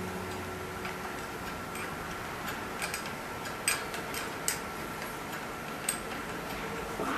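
Irregular light clicks and ticks, with a few sharper ones in the middle, over a faint steady high hum.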